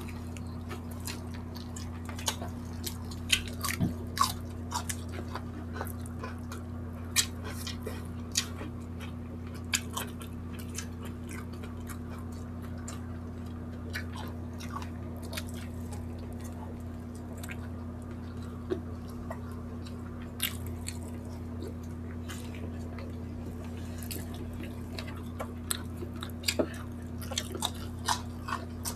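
Close-up chewing and mouth noises of people eating saucy chicken barbecue and rice with their hands, heard as scattered short clicks, thicker in the first ten seconds and again near the end. A steady low hum runs underneath.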